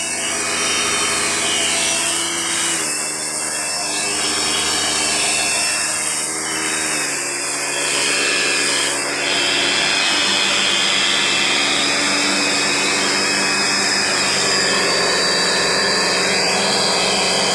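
Angle grinder motor running steadily under load, spinning a blade inside a plastic jar to grind rice husks into fine powder. Its tone shifts at a few points along the way.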